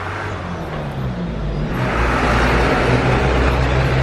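Low, steady hum of a motor vehicle's engine running, joined about two seconds in by a louder rushing noise that holds to the end.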